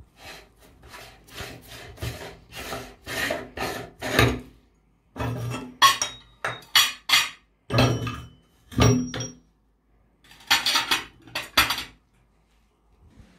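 A hand-cranked metal meat grinder being taken apart: a run of rasping scrapes as the front ring and cutting plate are worked off, then louder metal clanks and clinks with brief ringing as the parts come out and are set down.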